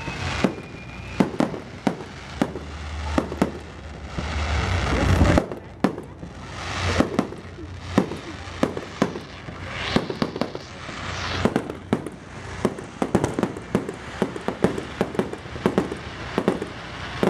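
Fireworks display going off: a rapid, irregular run of sharp bangs and crackling pops, with a few longer rushing swells between them.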